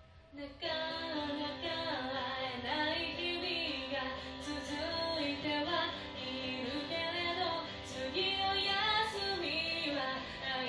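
A woman singing into a karaoke microphone over a karaoke backing track, her voice coming in about half a second in after a brief lull.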